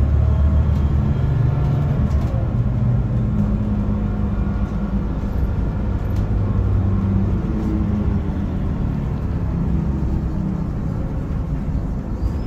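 Mercedes-Benz OC500LE bus's six-cylinder turbocharged CNG engine rumbling, heard from inside the passenger cabin while the bus is under way. The engine note eases gradually as the bus slows.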